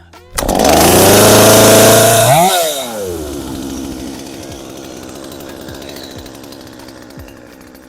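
Gas two-stroke chainsaw starting from cold on choke: it catches and runs at high revs for about two seconds, then the revs drop sharply to a lower idle that it holds while warming up.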